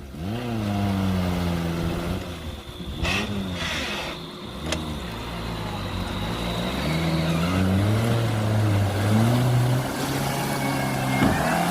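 Small 4x4 off-roader's engine revving up and falling back again and again as it is driven over rough off-road ground, with a couple of brief knocks.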